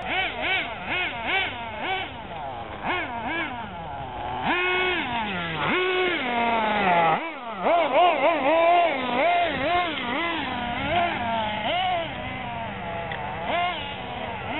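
Several radio-controlled racing cars' motors whining, revving up and down again and again as they race round the dirt track, with a long falling pitch about seven seconds in as one slows or pulls away.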